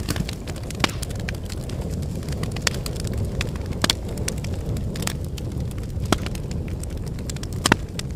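Wood fire in a fireplace crackling: sharp, irregular pops over a steady low rumble of the burning logs, with the loudest pop near the end.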